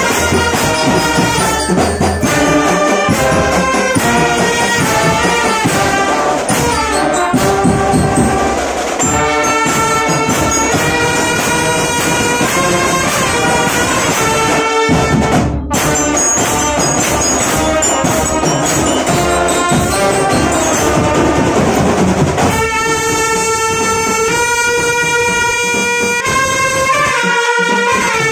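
Marching drumband's brass section playing a tune in unison, trumpets and bell-front horns over a sousaphone, with drum beats along. About three quarters of the way through, the brass settles into long held chords.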